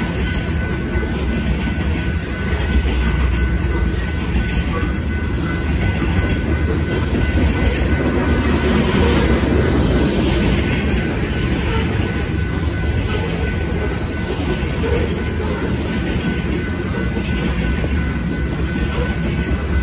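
Covered hopper cars of a freight grain train rolling through a grade crossing: a steady low rumble with clickety-clack of wheels over the rails, a little louder about eight to eleven seconds in. A faint steady ringing from the crossing-signal bell sits over it.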